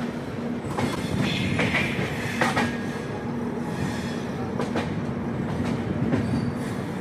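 Shri Shakti Express passenger train running along the track: a steady rumble with a steady low hum, broken by a few irregular clacks of the wheels.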